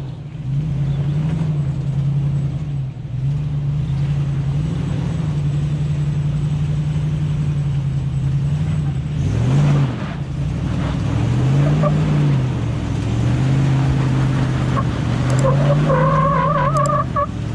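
V8 Toyota 4Runner engine running under load, revving up and down again and again. Near the end a high, wavering squeal joins in.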